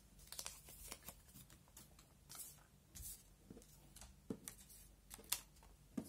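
Faint rustling and crinkling of small paper hearts being picked up, unfolded and set down on a table, in a string of short, sharp rustles.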